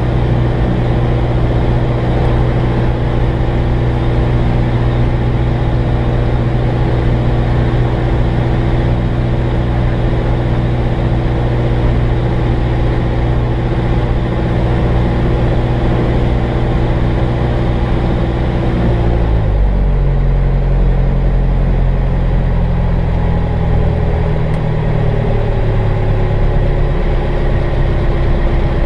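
Jabiru light aircraft's engine and propeller running steadily at run-up power, heard inside the cockpit. About two-thirds of the way through it is throttled back and the pitch drops, with a further small change near the end.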